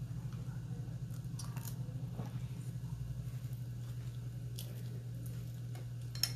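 A person chewing and biting a mouthful of food, with a few light clicks of a metal fork against a ceramic bowl, the sharpest near the end, over a steady low hum.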